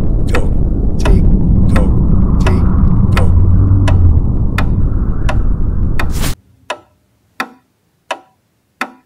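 A clock ticking evenly, about three ticks every two seconds, over a loud low rumble of an explosion. The rumble cuts off suddenly about six seconds in, leaving the ticks alone.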